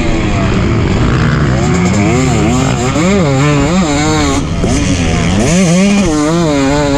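2023 KTM 250 SX single-cylinder two-stroke engine revving hard under full throttle. Its pitch wavers up and down several times a second as it runs against the rev limiter.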